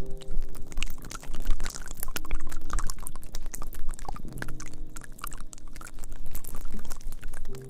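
Close-miked ASMR trigger sounds: dense, wet-sounding crackling and clicking, with a low steady hum underneath.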